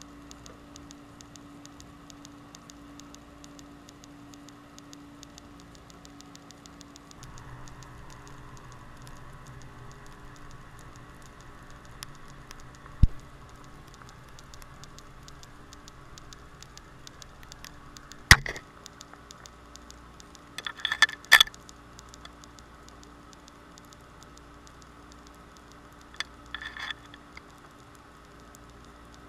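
Underwater sound heard through a camera housing on the seafloor: a steady crackle of fine clicks, typical of snapping shrimp, over a low hum. A few sharp knocks break in through the middle, with a short cluster of clicks after them and another near the end.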